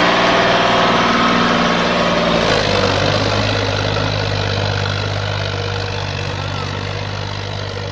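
Sonalika DI 750 diesel tractor engine running under load as the tractor drives through deep water, with water churning and splashing around it for the first couple of seconds. About two and a half seconds in, the engine note drops a little and then holds steady.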